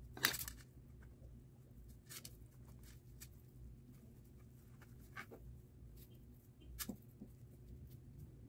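A few faint, scattered light clicks and taps over quiet room tone, the first, right at the start, the loudest.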